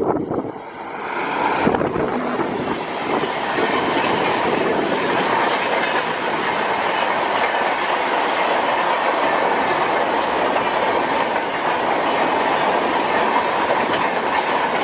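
Passenger train passing close by at speed, a steady rush of coach wheels clattering over the rails. The level dips briefly about half a second in, then holds loud and even.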